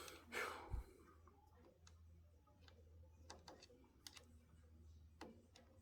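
Near silence: a faint low hum with a few scattered faint clicks.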